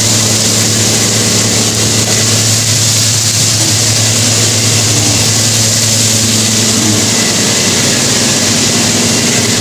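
Steady, loud hum of running kitchen machinery with a constant hiss over it, beside a wok of chicken deep-frying in oil.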